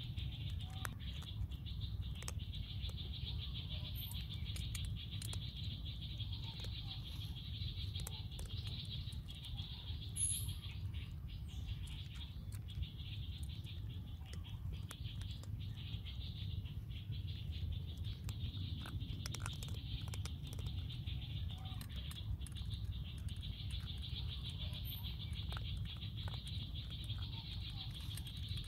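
A steady high insect trill that thins for a few seconds in the middle, over a low steady rumble, with scattered faint ticks and clicks.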